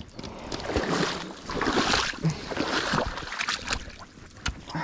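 Water sloshing and splashing in uneven bursts, with a few sharp clicks and knocks.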